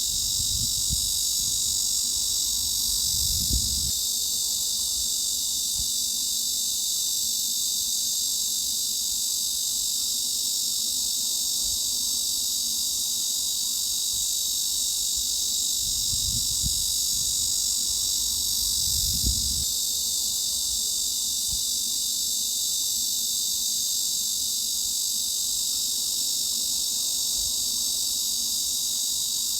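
Cicadas droning in a steady, continuous high-pitched chorus, pitched at about 3–4 kHz and above, used as a tinnitus masking sound.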